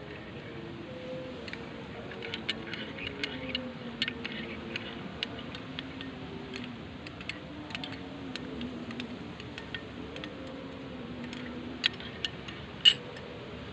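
Faint, drawn-out chanting voice from a distant mosque loudspeaker, slowly wavering in pitch, with scattered sharp clicks and taps close to the microphone, the loudest near the end.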